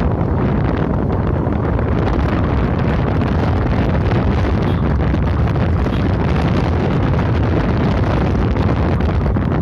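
Steady wind rush on the microphone of a moving motorcycle, with the bike's running noise beneath it.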